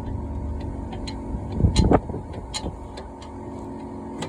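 Metal parts and tools clinking, with a loud scraping clatter about one and a half to two seconds in and a few sharp clicks after it, over a steady mechanical hum.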